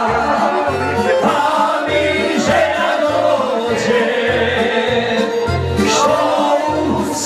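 Several men's voices singing together over music with a pulsing bass line of about two notes a second.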